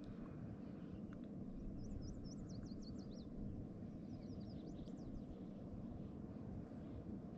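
Steady low rumble of wind on the microphone, with a small songbird giving two quick runs of high chirps, about two seconds in and again around four to five seconds in.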